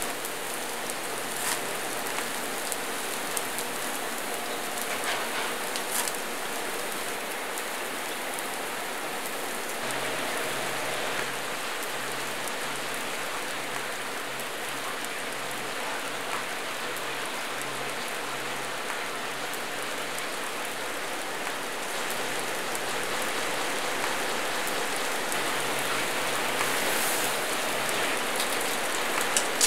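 Beef ribs and a burger patty sizzling over an open-flame grill: a steady hiss of cooking fat with a few sharp pops.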